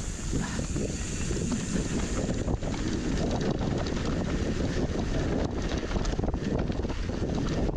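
Wind rushing over the microphone of a mountain bike rider's camera, with the knobby tyres rolling over a dirt trail and many small knocks and rattles from the bike over bumps, busier after about two seconds.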